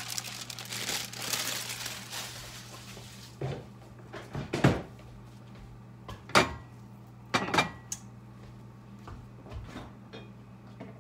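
Crinkly rustling of a plastic sheet being handled and lifted off the stovetop for a couple of seconds, then a string of sharp knocks and clatters of kitchenware and cupboards, over a steady low hum.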